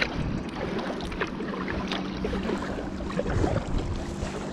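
Double-bladed kayak paddle strokes through calm river water: blades dipping and pulling, with scattered splashes and drips, over a low rumble of wind on the microphone.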